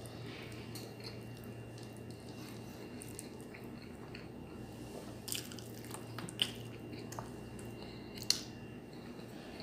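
Close-up eating sounds: chewing of sardines and rice, with fingers squishing and mixing rice on the plate. A few sharp smacks stand out in the second half, the loudest about six and a half and eight seconds in, over a steady low hum.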